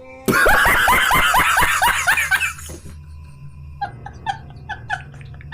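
Loud, rapid laughter for about two and a half seconds, then quieter repeated laughing sounds over a steady low hum, ending abruptly.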